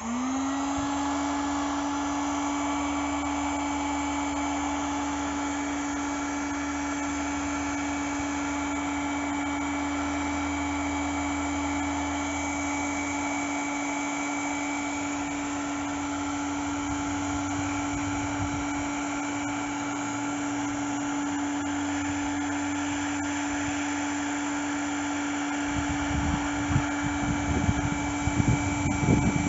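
Electric heat gun running steadily, its fan motor spinning up quickly at the start and then holding a steady whine, as it shrinks adhesive-lined heat shrink tubing over a soldered cable joint. A few low knocks come in near the end.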